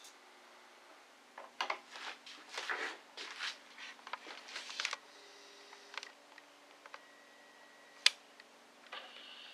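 Handling noise around a turntable once the stylus is lifted and the music has stopped: a run of rustles and clicks in the first half, a few lighter ticks, then one sharp click about eight seconds in.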